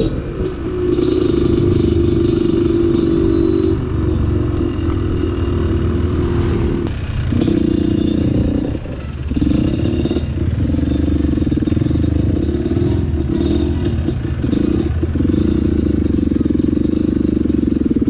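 Trail motorcycle engine running under changing throttle, revving and easing off several times, with the clearest let-off about nine seconds in.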